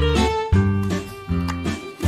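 Background music played on guitar, with a strong bass, the notes changing about every half second.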